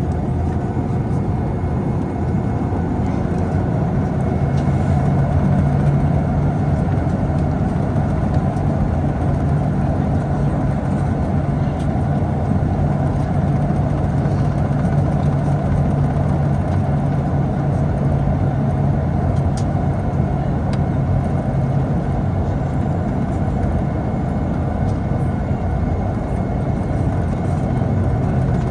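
Steady cabin noise inside a Boeing 757 on the ground before takeoff: jet engines at low power and air-conditioning rumble. A low drone strengthens about four seconds in and then holds steady.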